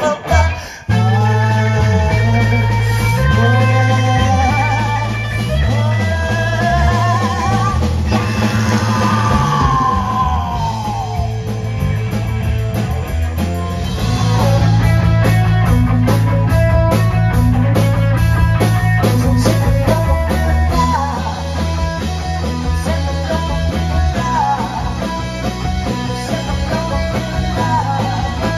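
Live rock band playing: electric guitar, bass and drum kit with a man singing into a microphone. The music drops out for a moment just after the start, and about halfway through it cuts to a busier, more driving passage.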